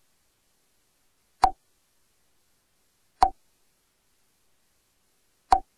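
Three short, sharp clicks about two seconds apart, with dead silence between them.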